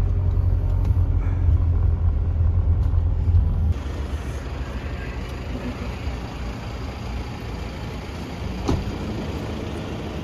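Steady low rumble of engine and road noise inside a moving Toyota van's cabin, cutting off abruptly about a third of the way in. After it comes quieter, even background noise with one short tick a few seconds later.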